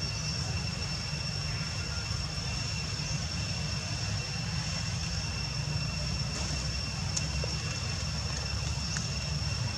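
Steady outdoor background noise: a continuous low rumble with a thin, steady high-pitched whine over it.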